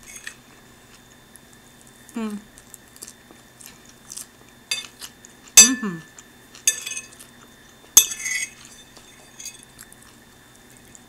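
Metal fork clinking and scraping against a plate while eating, in scattered sharp clicks; the two loudest come about halfway through and about eight seconds in.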